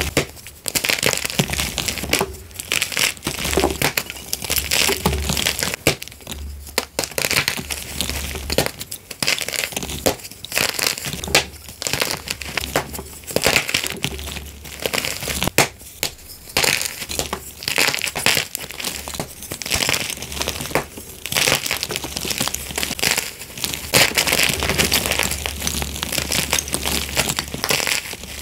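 Blocks of gym chalk snapped and crushed by hand: dry crunching and crumbling with sharp snaps, in bursts broken by short pauses.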